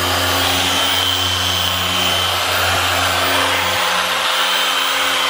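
Harbor Freight dual-action polisher with a 4-inch orange foam pad running steadily at speed setting 4.5, held at medium pressure on a plastic headlight lens to polish out yellowing: an even motor hum with a high whine.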